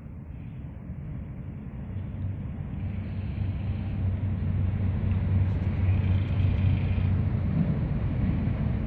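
Low, steady engine drone of a cargo ship under way, growing louder as it approaches.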